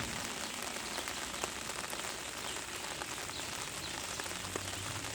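Steady rain falling on a surface, with many individual drops heard as small clicks.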